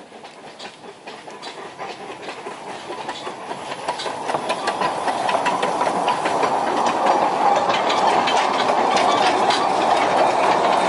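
Narrow-gauge train, a 1918 Kerr Stewart steam locomotive hauling open coaches, approaching and passing close by. Its wheels click rapidly over the rail joints, growing steadily louder for the first six seconds or so and then holding loud as the coaches go past.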